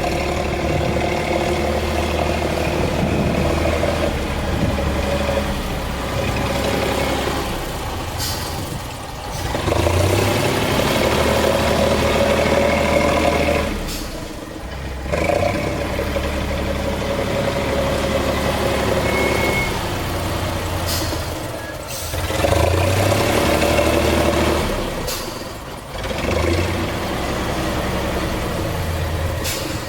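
BL 130's engine working under varying load, rising and falling in revs, with several short hisses of compressed air escaping through the control valves. The hisses come with each change of direction, steering movement or braking, and show that the compressed-air control is working properly.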